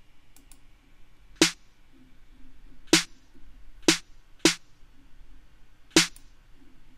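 808-style snare drum sample played solo from a hip-hop drum track: five sharp snare hits, the middle three closer together, each with a short ring.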